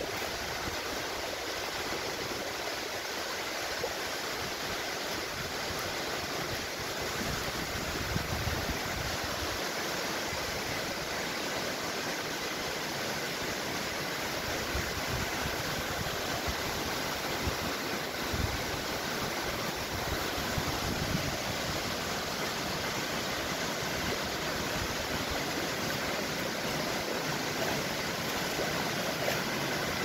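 Waterfall: a steady rush of water plunging down a tall cliff face and splashing over rock cascades.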